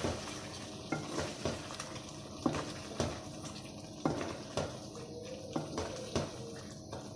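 Spatula stirring chicken and masala in a steel karahi, scraping and knocking irregularly against the sides of the pan.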